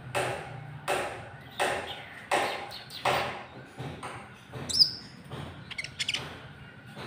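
Konin trotol bird calling: a harsh note repeated about every 0.7 s, then weaker, shorter notes and one brief high chirp about five seconds in.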